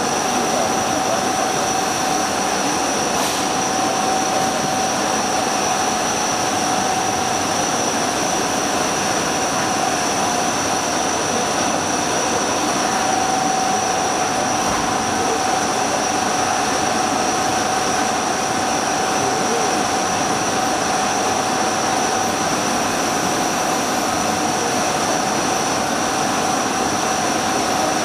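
CNC turning machine running a cut under flood coolant: a steady rush of spraying coolant and machining noise with two constant whines from the spindle and tooling, one mid-pitched and one high.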